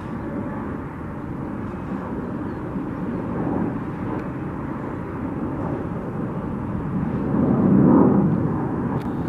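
Jet airliner engines rumbling steadily, swelling to their loudest about eight seconds in.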